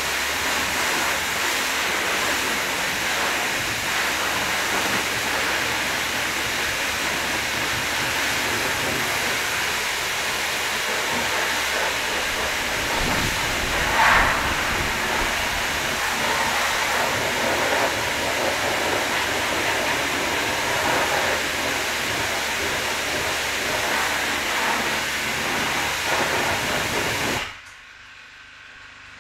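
High-pressure car-wash wand spraying water onto a car, a steady loud hiss with one brief louder burst about halfway through; the spray cuts off suddenly near the end.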